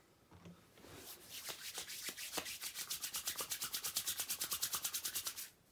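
Palms rubbed briskly together over a couple of drops of beard oil, a fast, even rubbing hiss that starts about a second in, grows louder and stops abruptly near the end.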